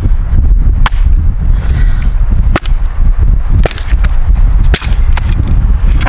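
Strong wind buffeting the microphone in a steady low rumble, with about six sharp, irregularly spaced cracks through it.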